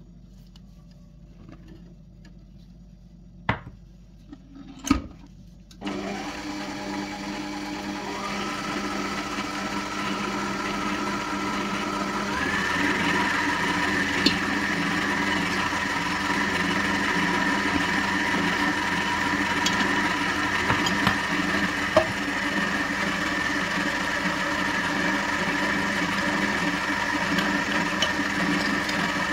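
Electric mixer motor switched on about six seconds in and running steadily, its pitch stepping up twice as the speed is raised. Two sharp knocks come just before it starts.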